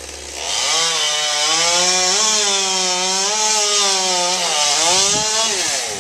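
Chainsaw revving up about half a second in and running at full throttle while cutting wood, its pitch wavering under the load of the cut. It drops away sharply near the end and revs back up.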